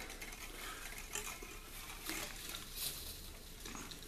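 Faint rustling and light scattered ticks of a bundle of thin wires being bent by hand, the strands scraping against each other.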